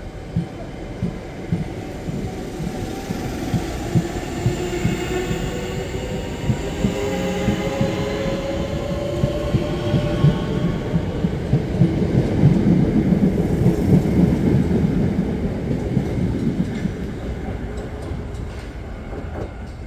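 Southeastern Class 465 Networker electric multiple unit pulling away: its traction motors whine in a rising pitch as it picks up speed, and its wheels clack over the rail joints. The sound builds as the coaches pass, peaks, then fades near the end as the train draws away.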